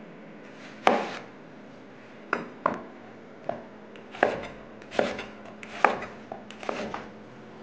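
Chef's knife cutting a red onion on a wooden cutting board: about ten sharp, irregularly spaced knocks as the blade goes through and strikes the board.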